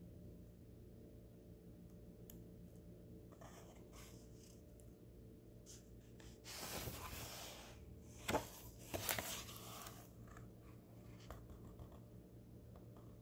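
A book's paper pages being handled and turned by hand: a paper rustle about halfway through, then a couple of sharp paper snaps and a few light ticks, faint, over a steady low hum.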